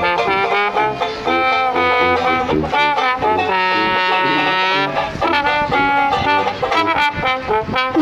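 Street trio of trombone, banjo and tuba playing a tune, the brass in front. One note is held for about a second and a half near the middle.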